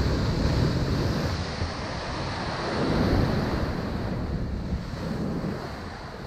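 Ocean surf washing onto the beach, with wind buffeting the microphone; the surf swells about a second in and again around three seconds.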